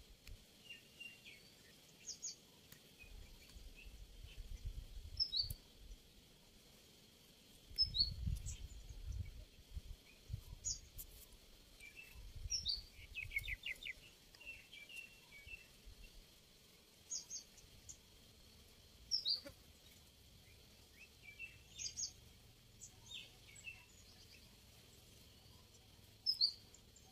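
Wild birds calling: short, high, downward chirps repeated every couple of seconds, with a quick trill about halfway through. Low rumbles come and go in the first half.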